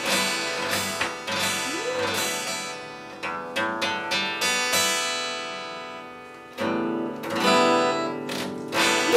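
Acoustic guitar strummed in chords, each with a sharp attack. About two thirds of the way through, one chord is left ringing and fading for a couple of seconds before the strumming picks up again.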